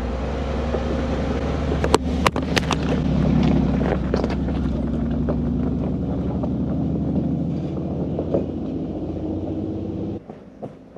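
Action camera knocked off a Mercedes G-Class's bonnet, hitting the rocky track with a few sharp knocks about two seconds in. The 4x4's engine runs steadily, easing off over the following seconds and dropping away sharply near the end as the vehicle drives on without the camera.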